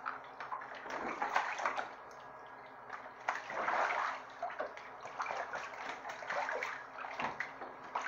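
A Canada goose bathing in a bathtub, dipping and thrashing so the water splashes and sloshes in irregular bursts.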